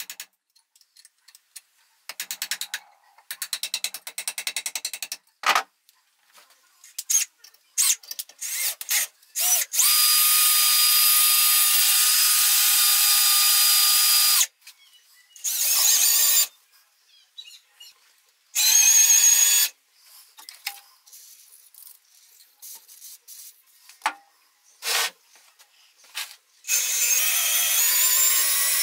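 Electric power tool, drill-like, run in repeated short bursts and a few longer steady runs, each with a steady high whine. A quick series of clicks comes near the start.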